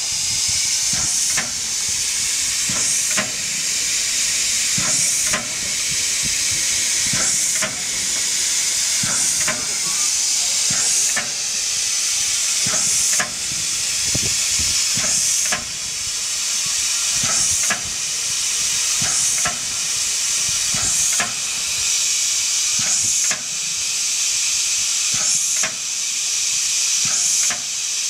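Standing steam locomotive 56 548, a former Deutsche Reichsbahn class 52, hissing steam steadily. The hiss swells and drops back sharply about every two seconds, with short light clicks throughout.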